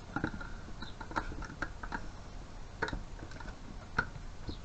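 Scattered sharp clicks and light taps of floor-fan parts being handled and fitted back together, the sharpest about three and four seconds in.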